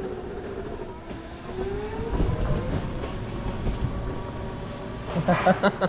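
A trike's motor whining as it rolls over a concrete floor. The whine dips and then rises in pitch with speed over a low rumble from the wheels.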